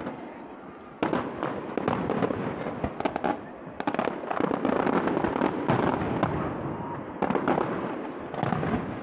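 Aerial fireworks display: shells bursting in a dense, rapid run of bangs and pops. The bursts grow loud about a second in and keep coming with hardly a break.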